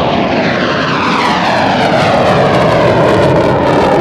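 A MiG-17 jet fighter's turbojet running at takeoff power as it climbs away past the crowd. The roar is steady, with a whine that falls in pitch as it passes.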